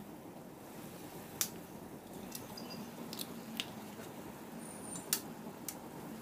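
Thick tomato-onion masala gravy simmering in a frying pan, faint, with a few sharp pops and spits scattered through it.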